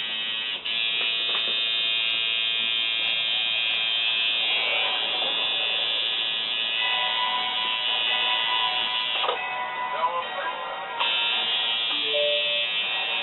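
Electric tattoo machine buzzing steadily, stopping for about two seconds and then starting again, with music playing in the background.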